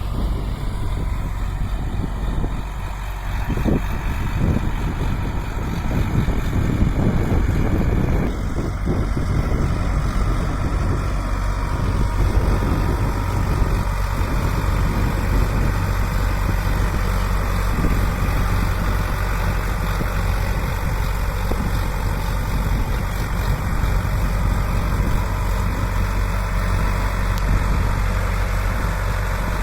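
Sonalika DI 750 RX Sikander tractor's four-cylinder diesel engine running steadily, with a low, even hum.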